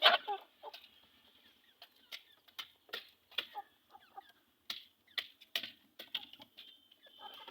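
Native chickens clucking, with many short, sharp clicks and taps scattered through; the loudest comes right at the start.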